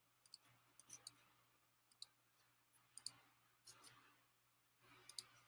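Near silence with about ten faint, irregular clicks of a computer mouse.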